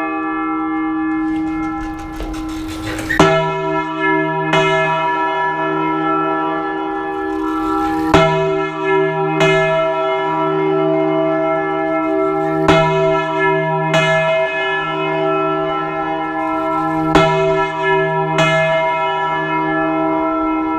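A large church bell swung full circle by hand (a volteo), its clapper striking in pairs about a second apart, a new pair roughly every four and a half seconds. Between strikes the bell keeps ringing as a long, steady hum.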